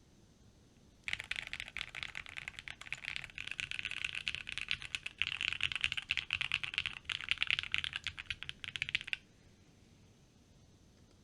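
Fast continuous typing on a Think6.5 V2 mechanical keyboard with lubed and filmed C3 Tangerine switches, ePBT keycaps and a painter's tape and switch-pad mod that the uploader says gives a creamier sound with less high pitch. The typing starts about a second in and stops about two seconds before the end.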